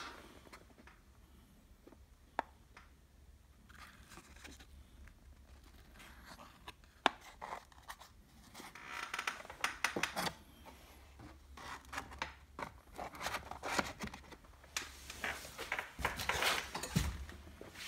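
Small cardboard boxes being handled by hand: scattered scrapes, rubs and light clicks of card against card, busier about halfway through and again near the end.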